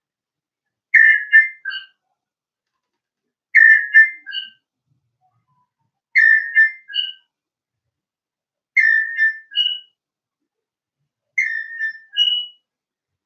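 A short whistled phrase, repeated five times about every two and a half seconds: each a quick falling cluster of notes followed by a brief higher note.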